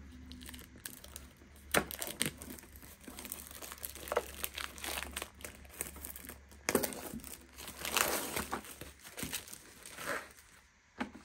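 Clear plastic shrink wrap crinkling and tearing as it is peeled by hand off a cardboard box, in uneven rustles and crackles that die away near the end.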